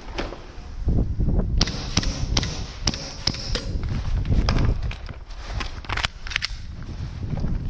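Airsoft guns firing, a string of sharp snapping shots about two or three a second, then a few more near the end, over a low rumble of movement and wind on a head-mounted microphone.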